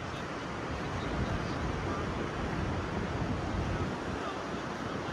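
Steady wash of ocean surf with wind rumbling on the microphone.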